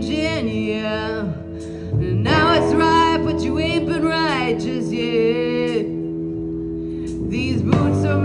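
Live garage R&B band playing electric guitar, bass guitar and drums, with a sung vocal line over the band.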